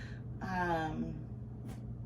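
A woman's voice: one short drawn-out syllable falling in pitch, a hesitation sound between phrases, over a steady low hum.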